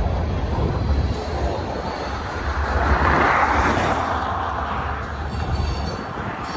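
Covered hopper cars of a freight train rolling past: a steady rumble of steel wheels on the rails, swelling to a louder hiss about three seconds in.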